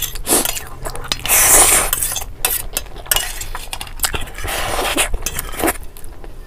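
Metal fork clinking and scraping against a small steel bowl, with loud close-up eating sounds in several bursts as food is pushed from the bowl into the mouth.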